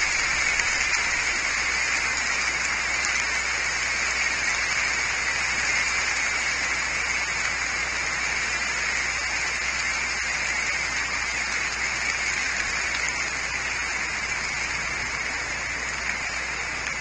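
Steady rain falling on tree foliage, an even hiss with no breaks.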